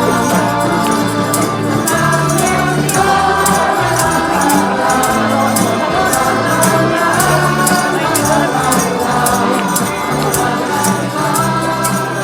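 Christmas music with singing voices over a steady, evenly ticking beat.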